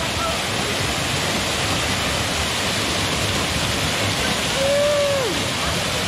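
Small waterfall pouring steadily into a rock pool, a constant rush of falling and splashing water. About five seconds in, a person's voice gives a brief call that falls in pitch.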